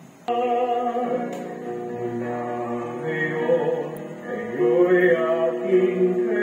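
Church hymn music playing through a TV's speaker. Held notes with singing come in suddenly about a third of a second in and move from chord to chord every second or so.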